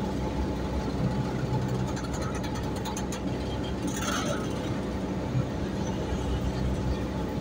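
Freight train of open wagons rolling slowly past on new track: a steady low rumble of steel wheels on rail, with clicking and rattling from the bogies and couplings.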